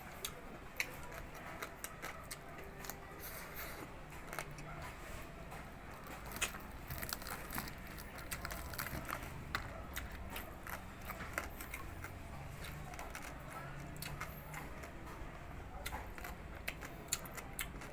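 Close-up chewing of crispy deep-fried pig face (crispy maskara ng baboy), with many irregular sharp crunches and crackles.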